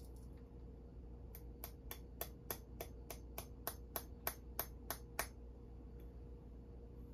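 A run of about thirteen sharp, evenly spaced taps on a hard object, about three a second, starting about a second and a half in and stopping around five seconds.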